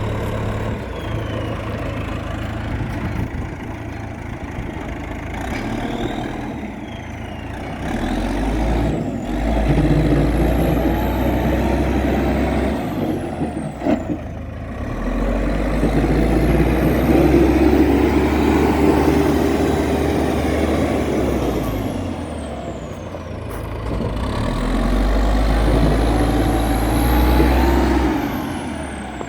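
Diesel engine of a 1998 JCB backhoe running, working harder and louder three times for several seconds each (about a third of the way in, in the middle, and near the end), each time with a whine that rises and falls, then easing back to a lower run between.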